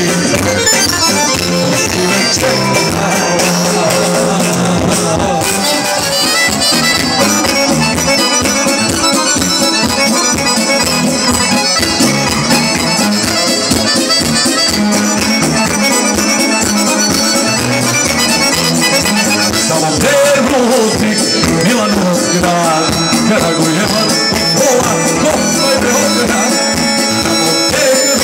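A live band plays a Serbian folk tune, with an accordion lead over drums, electric guitar and keyboard, heard through a stage PA.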